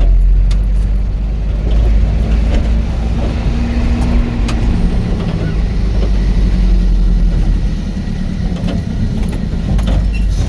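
A vehicle driving over a rough dirt road: a steady low engine and road rumble, with scattered rattles and knocks from the bumpy ride.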